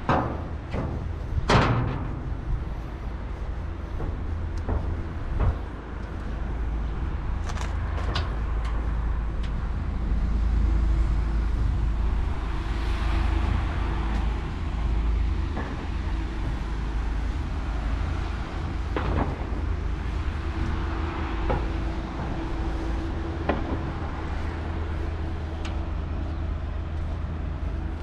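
Urban outdoor ambience: a steady low rumble of road traffic, with a vehicle engine droning in the middle and again later. Scattered sharp clanks and knocks, the loudest about a second and a half in.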